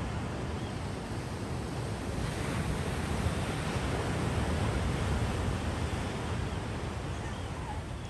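Ocean surf breaking and washing up a sand beach, a steady rush that swells a few seconds in and eases toward the end. Wind rumbles on the microphone.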